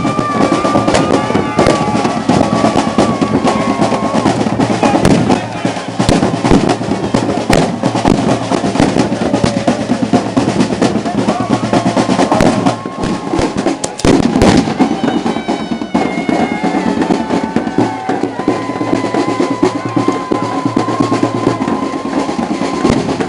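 Procession drums beating rapidly, with voices in the crowd and several sharp firecracker bangs (rookies) cutting through. Long held high notes sound above the drumming.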